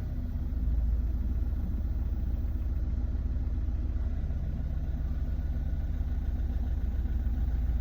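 Opel Astra's Z17DTR 1.7 CDTI turbodiesel idling steadily. This is the rough, strange idle the owner is showing as a fault.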